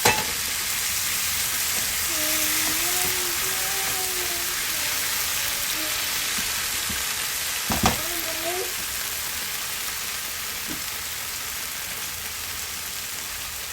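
Tomato, chili pepper and onion sauce sizzling steadily in a frying pan just after a little water is added. There is a sharp knock at the start and another about eight seconds in.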